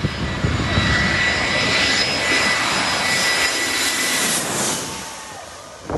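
Twin-engine jet airliner on final approach with its landing gear down, passing low overhead: a steady engine whine and rush of air that grows to its loudest about four seconds in and then falls away.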